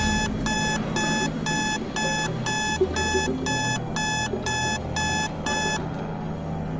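Electronic alarm beeping in a steady run, about two high beeps a second, then cutting off about six seconds in. A low steady hum sits underneath.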